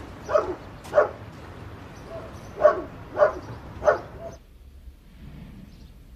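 A dog barking: five short barks, a pair near the start and three closer together around three seconds in, stopping a little after four seconds.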